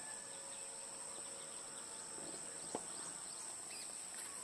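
Steady high-pitched drone of insects in a grassy field, with scattered short chirps over it. A single brief knock sounds a little under three seconds in.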